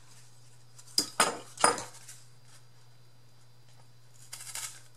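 Three sharp metallic clicks in quick succession about a second in, from metal craft tools being handled while cutting card, then a faint scratchy rustle near the end over a steady low hum.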